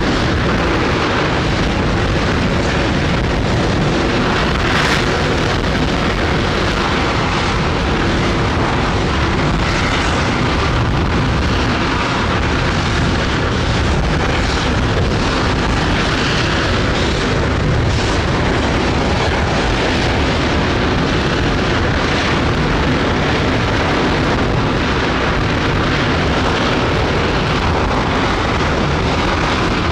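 Space Shuttle Main Engine, a liquid-hydrogen/liquid-oxygen rocket engine, firing on a ground test stand: a steady, loud, unbroken roar with occasional crackles.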